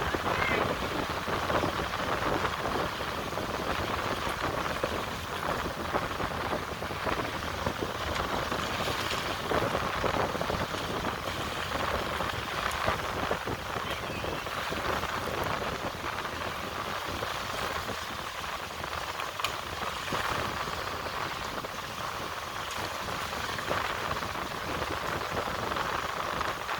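Steady rushing noise of the sea, with no lulls or single sounds standing out.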